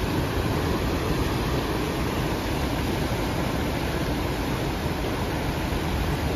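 Ocean surf washing over and around shoreline rocks: a steady, unbroken rush of churning water with a deep rumble, no single wave standing out.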